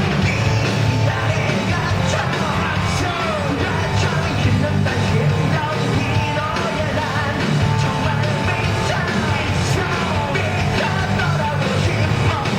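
Live rock band playing loud and dense, with a vocalist singing and yelling over the band.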